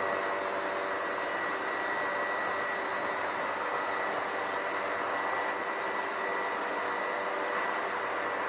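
Steady running noise of a vehicle driving through a road tunnel, with a faint high whine held throughout.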